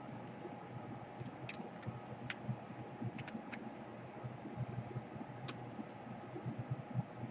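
Faint scattered sharp clicks and soft knocks from a screwdriver and hands working on a laptop's bottom panel, over a low steady hum.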